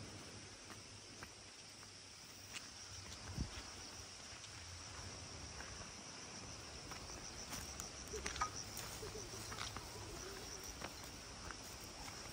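Insects chirring in a steady high-pitched chorus that pulses more strongly from about seven to ten seconds in, with occasional footsteps on a dirt path.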